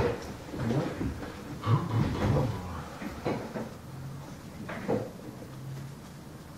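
A handful of sharp knocks and bumps, the loudest right at the start and the rest spaced a second or so apart, like objects being handled and set down on a desk. It goes quieter in the last second or so.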